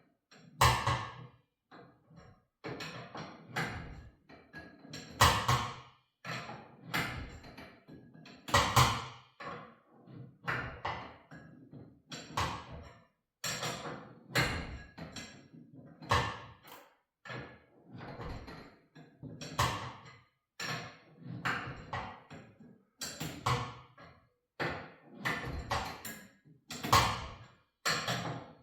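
Steel winding bars knocking in and out of a garage door torsion spring's winding cone as the spring is wound up a quarter turn at a time: a long run of separate sharp knocks about a second apart.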